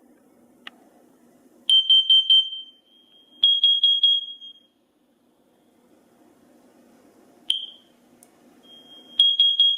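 Smoke and carbon monoxide alarms beeping: clusters of quick, high, piercing beeps, each running into a short held tone, repeat with pauses of a few seconds. This is a carbon monoxide alarm pattern, from a Kidde KN-COPE-I combination alarm sounding together with the house's hardwired alarms.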